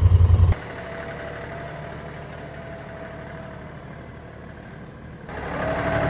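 LS compact tractor's diesel engine running: a loud, pulsing rumble cuts off abruptly about half a second in, giving way to a much quieter steady idle that grows louder again near the end.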